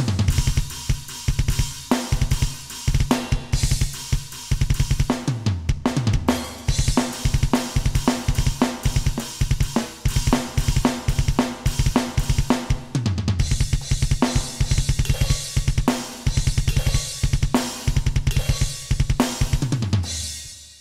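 Alesis Nitro Mesh electronic drum kit triggering custom metal drum samples, heard direct from the module: fast kick-drum strokes under snare and cymbal hits. About four times the tom fills run down the kit, each falling in pitch.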